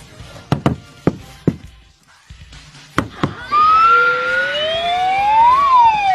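Cartoon-style action sound effects: several sharp hits, then from about halfway several whistling tones that glide up and down across one another.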